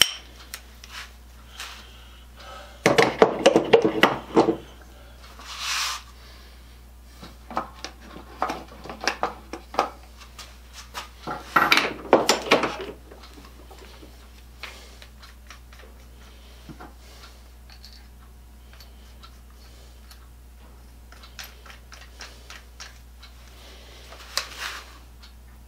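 Metal hand tools clattering and clinking on a wooden workbench as a hand drill and its bits are handled and put away. There are two louder stretches of rattling and scattered single clicks between them.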